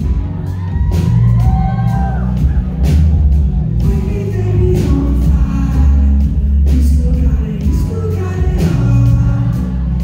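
Live band playing loud electronic-tinged rock, with a heavy bass line, steady drum hits and a lead singer's voice over guitar and keyboards.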